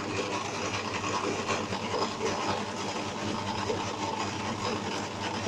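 Maksindo BA60 round dough divider running, a steady, even motor hum.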